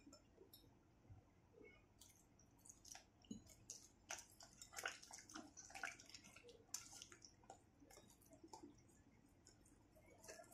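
Faint wet squelching and irregular soft clicks of thick gram-flour (besan) batter being stirred and beaten in a bowl.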